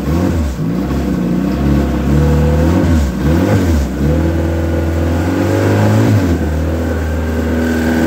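Dodge Neon 2.0-litre single-overhead-cam four-cylinder engine running on a test stand moments after starting, freshly rebuilt with new rings that are being broken in. Its speed rises and falls several times over the first four seconds, then settles to a steady idle.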